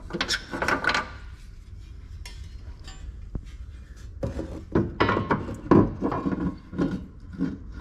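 Steel reinforcement bracket clanking and knocking against the rear axle and suspension brackets as it is worked into place: a few knocks right at the start, then a busy run of them from about four seconds in.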